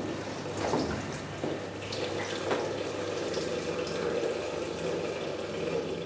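A steady stream of liquid splashing into a porcelain urinal, a man urinating, which stops near the end. A few light knocks sound in the first couple of seconds.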